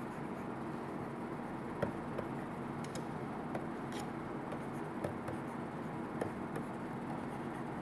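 Light, irregular clicks and taps of a stylus writing on a tablet screen, over a steady low electrical hum and room noise.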